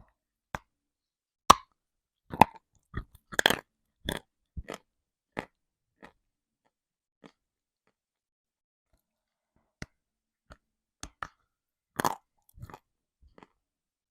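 Close-up crunching and biting of dry pieces of edible chalk and clay: sharp brittle cracks come thick in the first six seconds, then after a pause a few more crunches near the end.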